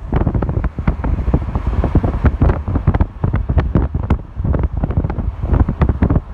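Wind buffeting the microphone in loud, uneven gusts, a rumbling low noise that rises and falls every fraction of a second.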